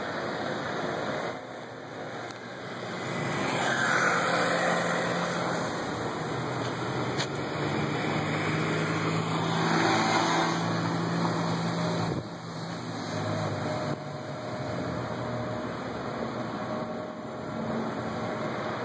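City street traffic: cars passing with engine hum and tyre noise, swelling about four and ten seconds in.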